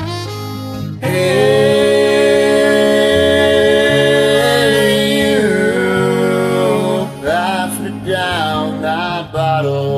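A solo singer holds one long note over a karaoke backing track, the pitch wavering slightly, then sings a few shorter phrases near the end.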